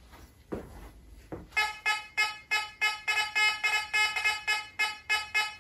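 Fisher F44 metal detector giving its target tone as a metal object is swept back and forth over the coil: a rapid run of buzzy beeps, about four a second, starting about a second and a half in.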